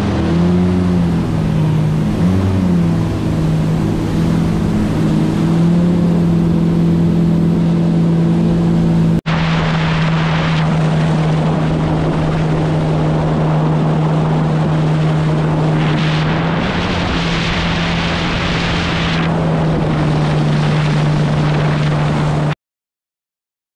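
A boat's outboard motor running at a steady cruising speed, its pitch wavering in the first few seconds, with wind and water rushing past that swell for a few seconds later on.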